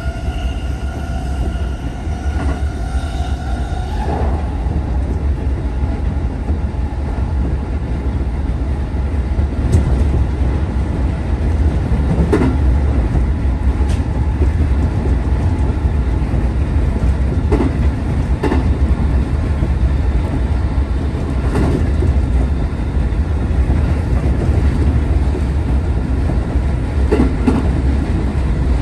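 A train running, heard from inside a passenger car. A steady low rumble grows louder over the first ten seconds as the train picks up speed. A steady whine stops about four seconds in, and wheels clack over rail joints now and then after that.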